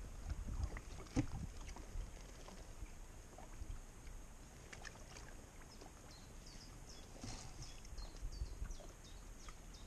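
Quiet outdoor ambience: a low wind rumble on the microphone with a sharp click about a second in and small clicks and rustles of fishing tackle being handled, and faint high chirps scattered through the second half.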